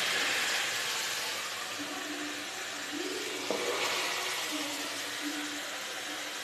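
Chicken biryani masala sizzling in oil in a steel pot. The hiss swells near the start and again about three and a half seconds in as a spoon stirs it, with a small spoon click at that second swell.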